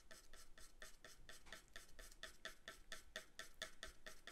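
Soft 2B graphite pencil (Derwent Graphic) shading back and forth on paper to lay a flat patch of tone: faint, even scratching strokes, about seven a second.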